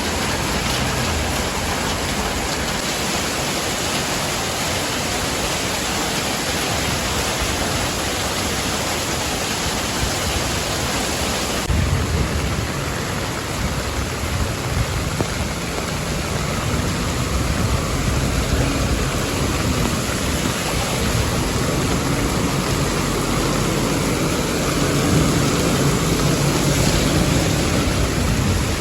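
Heavy rain as a steady, even hiss. About twelve seconds in the sound shifts and a low rumble joins it.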